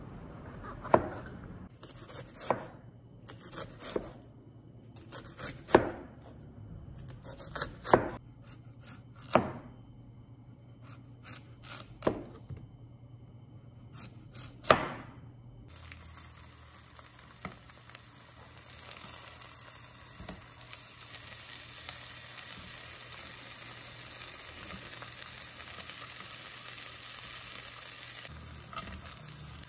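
Cleaver chopping mushrooms and zucchini on a plastic cutting board, in single sharp knocks a second or two apart. About halfway through it gives way to a steady sizzle of zucchini slices frying in oil in a nonstick wok.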